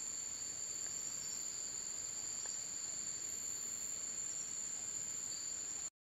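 Steady high-pitched insect trill, holding one unbroken pitch with a fainter lower tone beneath it, over a low hiss; it cuts off abruptly near the end.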